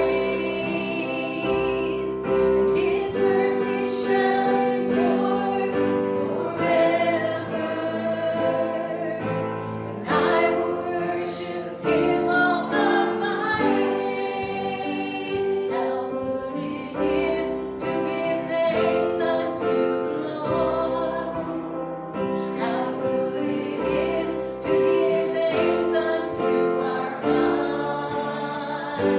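Gospel worship music: several voices singing a hymn together over instrumental accompaniment, with long held notes.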